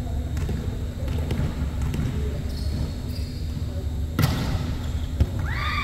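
Volleyball play: a sharp smack of the ball being hit about four seconds in, then a smaller thud about a second later, over a steady low hum.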